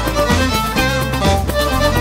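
Upbeat dance song with a fiddle carrying the tune over a steady beat and a moving bass line.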